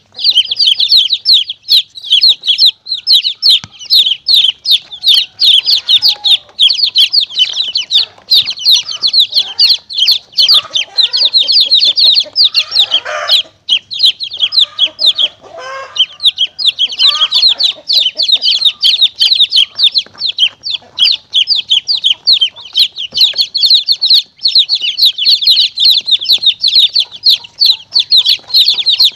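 Chicks peeping rapidly and without pause, many high falling peeps a second. For a stretch in the middle, lower clucking sounds join in, typical of a hen.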